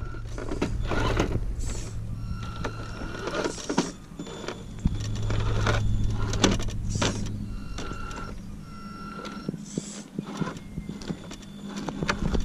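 Axial SCX10 RC rock crawler's electric motor and geared drivetrain whirring and humming as it crawls over rocks, speeding up and easing off, with several short higher whines. Tyres and loose stones click and crunch under it.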